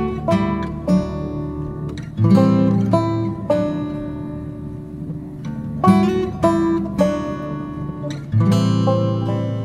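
Background music: acoustic guitar picking and strumming chords, each struck chord ringing and fading before the next.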